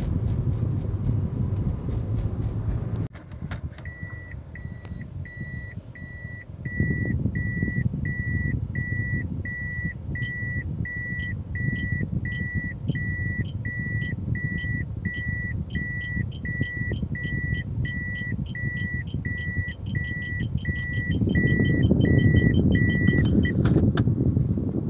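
Aftermarket reverse parking sensor beeping at a steady rate, about one and a half beeps a second, while the car backs up; the beeping quickens near the end as the car closes on the obstacle behind. Car cabin and engine rumble runs underneath, and the first few seconds are road noise from driving.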